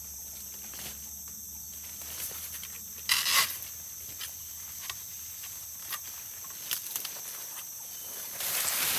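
Steady high-pitched drone of tropical forest insects, with scattered small clicks and two louder short hissing sounds, one about three seconds in and one near the end.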